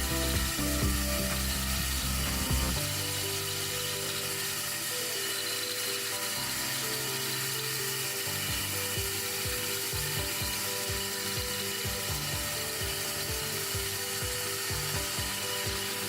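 Vibratory disc mill running at about 1300 rpm. Its hardened-steel grinding ring and disc rattle rapidly and continuously inside the grinding bowl as they crush the sample.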